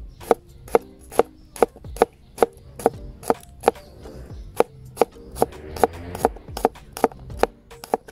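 Chef's knife slicing garlic cloves on a plastic cutting board: a steady run of sharp knocks as the blade hits the board, about two and a half cuts a second.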